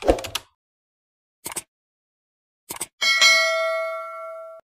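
Subscribe-animation sound effects: a few short clicks, then a single bell ding about three seconds in that rings on for about a second and a half and cuts off suddenly.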